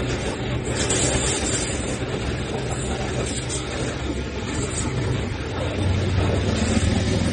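A steady low engine rumble, like motor traffic, growing louder about six seconds in.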